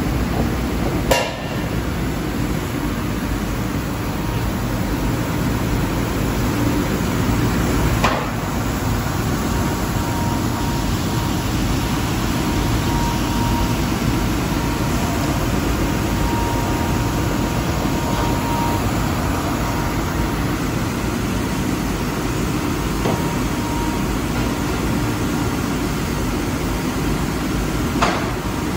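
Costa S-series wide-belt sanding machine and surrounding woodworking machinery running with a steady noise and a strong low rumble. A few sharp knocks of wooden frame pieces being handled cut through it, about a second in, around eight seconds in, and near the end.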